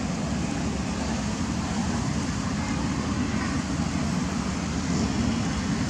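Steady low background rumble with no distinct events, heaviest in the low end.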